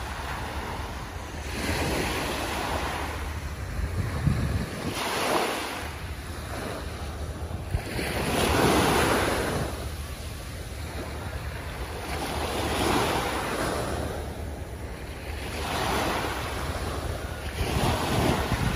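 Small waves breaking and washing up onto a sandy beach, the surf swelling and fading every few seconds. Wind rumbles on the microphone.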